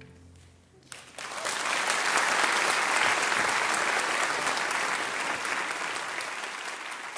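The last chord of a string orchestra dies away, and about a second in an audience breaks into applause. The clapping holds steady, then eases off slightly toward the end.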